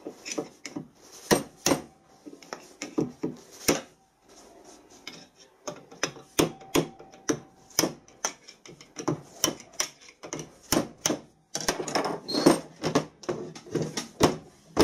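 Ratchet and spanner working the bolts on a turbocharger's exhaust outlet elbow: irregular sharp clicks and metal clinks several times a second, with a busier spell of clatter and rubbing near the end as the turbo is handled.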